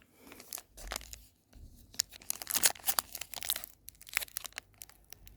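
Pokémon booster pack being torn open by hand, its foil wrapper tearing and crinkling in a run of sharp crackles that are thickest in the middle.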